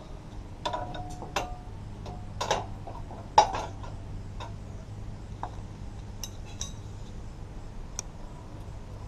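A handful of sharp metal clinks and clicks from the steel frame of a QuickJack scissor lift being worked by hand as it is readied to lower, each with a brief metallic ring; the loudest comes about three and a half seconds in. A steady low hum runs underneath.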